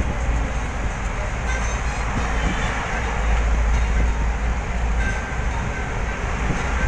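Steady engine and road noise inside a moving vehicle's cab, a constant low rumble under a wash of tyre and wind noise.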